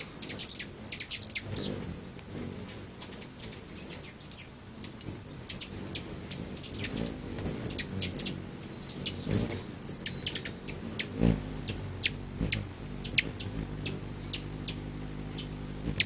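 Hummingbirds giving rapid, high-pitched chip and chatter calls, in irregular clusters of short notes.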